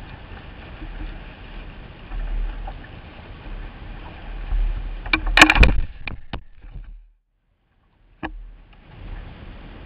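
Steady wind and water noise on a camera mounted on a jet ski's bow. About five seconds in, a cluster of loud knocks and taps comes as the rider handles the camera, and then the sound cuts out for about a second before a single click.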